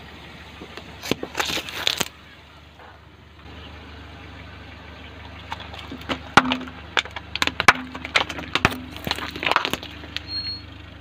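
Car tyre rolling over and crushing a drink carton, with a short cluster of sharp cracks about a second in. Then a row of plastic yogurt cups bursts under the tyre, in a long run of sharp cracks and pops from about six seconds in, all over a low steady hum.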